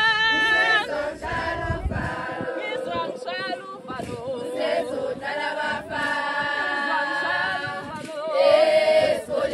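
A group of women singing a traditional Zulu song together without instruments, several voices holding long notes.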